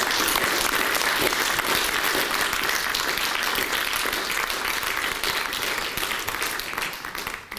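Audience applauding, a steady round of many hands clapping that fades away near the end.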